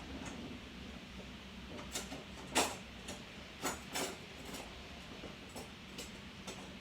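Kitchen handling noises: about eight short clicks and knocks of utensils and objects being picked up and set down, the loudest about two and a half seconds in, over a low steady hum.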